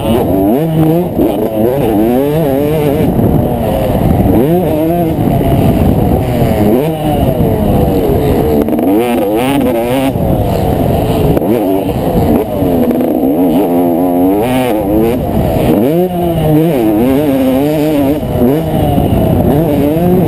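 Motocross dirt bike engine heard from the bike itself, revving hard and dropping back over and over as the rider accelerates and backs off around the track.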